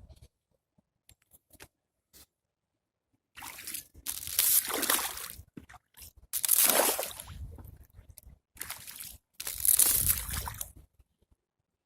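Water sloshing and splashing in three separate bursts, each lasting about a second and a half.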